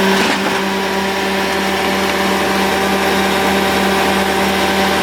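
Pfanzelt Moritz fr 75 forestry tool carrier running at a steady high speed, a constant even-pitched drone.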